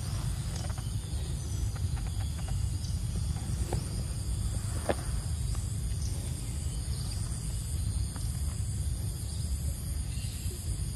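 Insects chirring steadily in a high, finely pulsing drone over a constant low rumble, with a few faint clicks, the clearest about five seconds in.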